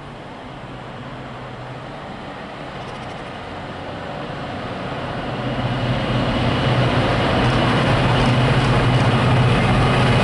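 Freightliner Class 66 diesel locomotive 66413 approaching and passing at speed with a container train: a steady low diesel engine drone and rail noise growing louder over several seconds, then holding level as the locomotive draws alongside.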